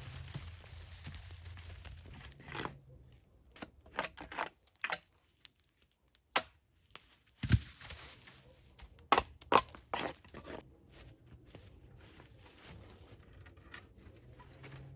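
A string of irregular sharp cracks and knocks, with a dull thump about seven and a half seconds in and two loud cracks soon after.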